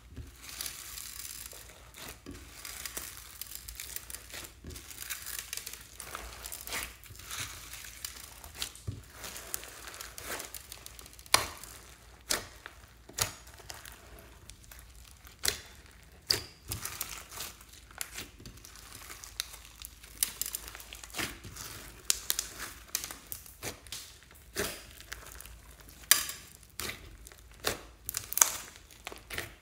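White glossy slime mixed with foam beads and sprinkles being squeezed and kneaded by hand: a continuous sticky crackle with irregular sharp pops and snaps, which grow louder and more frequent partway through.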